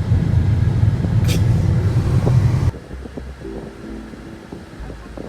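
Steady low rumble of a car driving, heard from inside the cabin. It cuts off abruptly about two and a half seconds in, leaving a much quieter stretch with faint steady tones.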